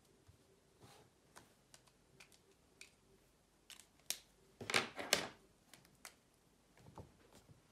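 Faint small clicks and taps of objects being handled on a desk, with a brief, louder scraping rustle about five seconds in.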